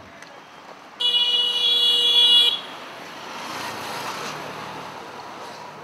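A vehicle horn blows for about a second and a half in street traffic. Then a vehicle passes, its noise swelling and fading.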